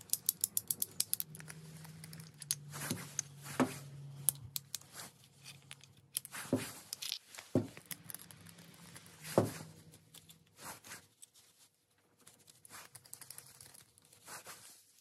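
Metal clicks and clinks of a Colt Single Action Army revolver being taken apart by hand. A quick run of ratcheting clicks comes first as the cylinder is worked. Then come scattered sharp single clicks and clinks as parts are handled and removed, with quieter handling toward the end.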